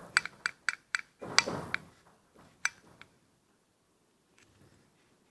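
A quick run of sharp metallic clicks and clinks from the cleaned throttle body being handled and worked, about a dozen in the first three seconds.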